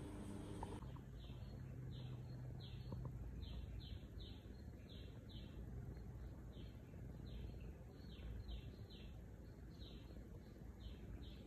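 A small bird chirping over and over: short, high chirps that each slide down in pitch, about two a second and unevenly spaced, with a low steady rumble underneath.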